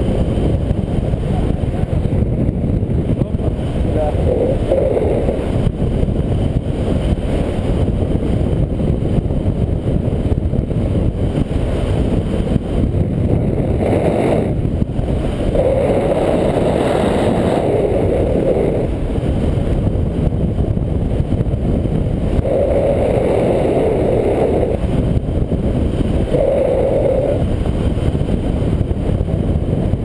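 Loud, steady wind rush on the microphone from the airflow of a paraglider in flight, with a few swells in its pitch.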